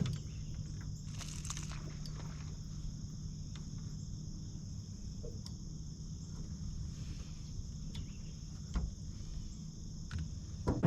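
Steady high-pitched chorus of crickets or similar insects, with a low steady hum beneath and a couple of short knocks near the end.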